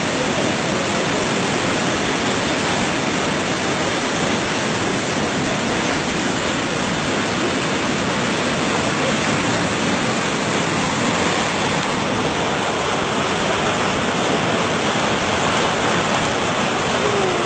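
Muddy floodwater rushing in a fast torrent, with flood waterfalls pouring: a loud, steady, unbroken rush of water.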